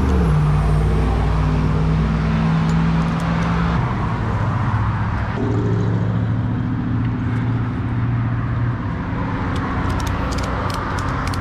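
An engine runs steadily with a low hum that steps in pitch a couple of times. Near the end there is a quick run of clicks from a ratchet strap being tightened.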